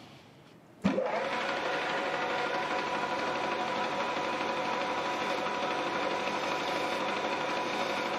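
Metal lathe switched on about a second in, its motor spinning up quickly and then running steadily.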